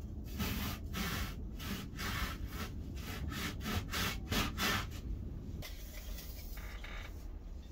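A knife sawing back and forth through a slab of high-density foam, in quick, even strokes about two to three a second that stop about five seconds in, followed by a softer scraping for another second or two.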